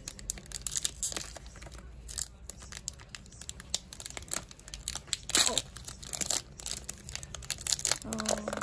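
Foil trading-card pack being torn open by hand along its crimped seal, the wrapper crinkling: a run of crackles and rips, the loudest about five and a half seconds in.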